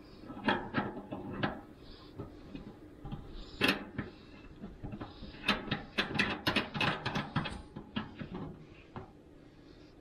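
Clicks and knocks of a plastic hose quick-connect fitting with a brass collar being handled and fitted onto the water inlet of a portable tankless water heater. One sharp click comes a little before four seconds, and a quick run of clicks follows between about five and a half and seven and a half seconds.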